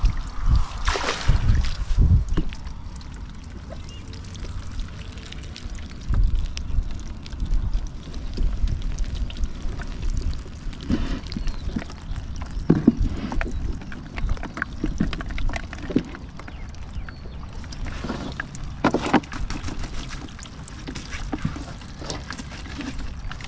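Wind rumbling on the microphone, with water splashing and pouring every few seconds as whitebait is handled at the river's edge.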